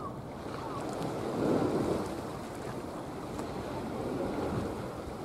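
Wind buffeting the microphone over open water and waves, as a steady rushing noise that swells about a second and a half in.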